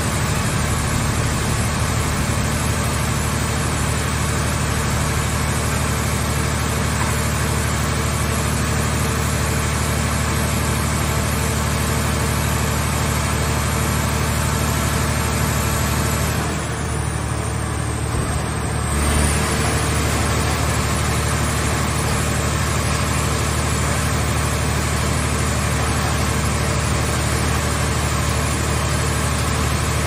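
Hydraulic car-scrap baler with grab crane running: a steady mechanical drone from its power unit and hydraulic pump, with a strong low hum. Partway through, the hiss thins out for about two seconds and ends in a short low bump.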